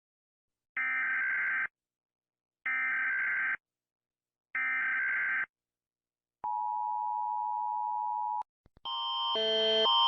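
Emergency Alert System tones: three short bursts of the digital data header, about a second apart, followed by the two-tone attention signal held steady for about two seconds. Just before the end, after a couple of clicks, a different, louder alarm with alternating tones starts up and grows louder.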